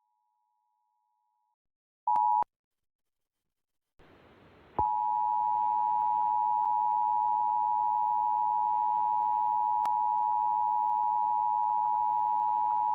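Emergency Alert System attention signal: the standard two-tone alarm of 853 Hz and 960 Hz sounding together, a harsh steady tone heard in a short snatch about two seconds in, then held for about nine seconds from about five seconds in. It is the alert tone that precedes the EAS test announcement.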